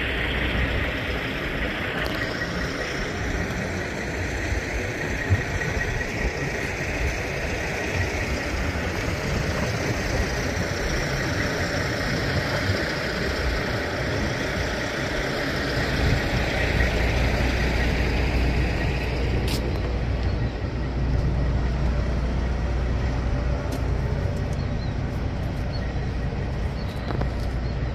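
Heavy diesel truck engine idling steadily under a constant hiss; its low rumble grows heavier a little past halfway.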